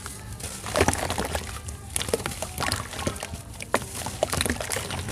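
Large chunks of red sand crumbling, with irregular crackles and soft wet sloshing and trickling; louder breaks come about one, two and nearly four seconds in.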